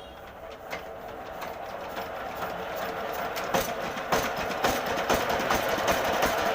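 Kamco 120 DI power tiller's single-cylinder diesel engine starting and running, with a rhythmic diesel knock that grows steadily louder as it picks up speed. The engine is running with a clogged air filter, which the mechanic later finds to be the cause of its sound problem and smoke.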